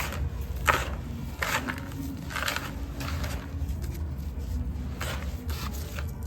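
Dry sand-cement crumbling in a series of soft, separate crunches, the loudest about a second in and again near the middle, over a steady low hum.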